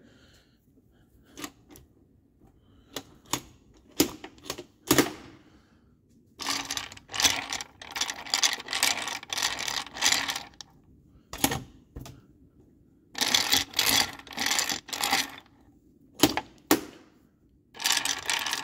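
Gears of an opened 1967 Gravely 430 transmission clicking and clattering as the drive is turned over by hand: single metallic clicks and knocks at first, then three bursts of rapid clicking as the gears spin.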